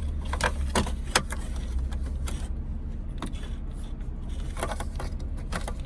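A handful of sharp plastic clicks and rattles as connectors and parts of a car's heater control unit are handled and worked loose, over a steady low hum.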